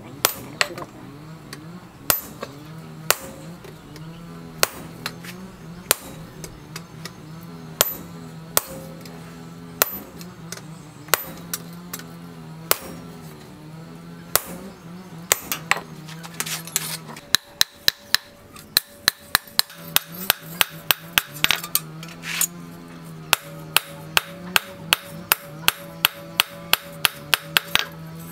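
Hand hammer striking a hot steel knife blade on a small steel post anvil, with sharp metallic clinks. The blows come about once a second at first, then speed up to a fast, even run of about two a second in the second half.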